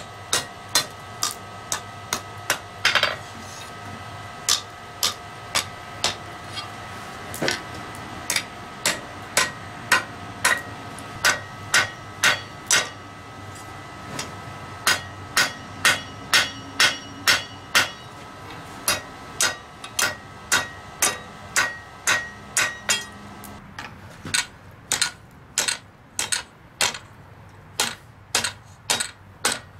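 Blacksmith's hand hammer striking hot mild-steel bar on an anvil, steady blows about two a second with the anvil ringing between them. About three-quarters of the way through the ringing drops away and the blows sound sharper and drier.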